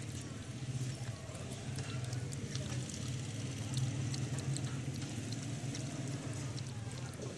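Water trickling from a plastic bottle into a cupped hand while a puppy laps at it, with small wet ticks. A steady low hum runs underneath.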